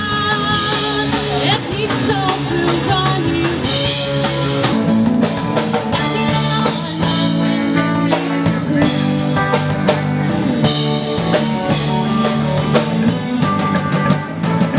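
Band music with a steady drum beat under sustained melodic instrument lines.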